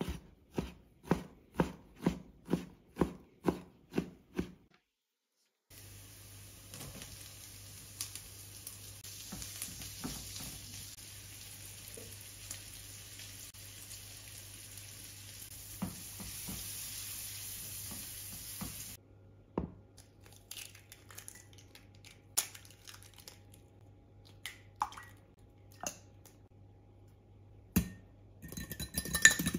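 A chef's knife chops bacon on a stone cutting board, about two chops a second for some four seconds. Then bacon fries in a pan with a steady sizzle and a low hum under it. After that come a few light taps and clicks, and near the end a fork clinks against a glass as eggs are beaten.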